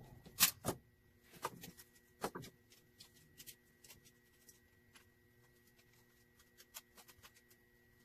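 Screwdriver and plastic plug parts clicking and tapping as the plug end of a power cord is wired: two sharp clicks about half a second in, a couple of short clusters over the next two seconds, then scattered light ticks.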